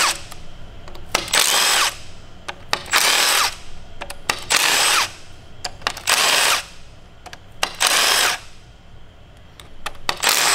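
Compact cordless impact driver running in short bursts, about six, each about half a second long, with a falling whine as the motor spins down after each. It is backing out Torx bolts one after another from an aluminium V8 engine's cast windage tray.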